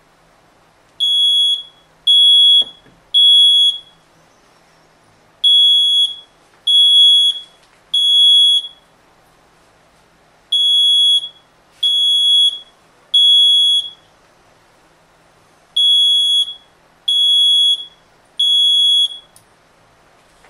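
Smoke alarm sounding in the temporal-three fire pattern: four groups of three loud, high-pitched beeps, each about half a second long, with a pause of about a second and a half between groups. It has been set off by smoke from the test bench.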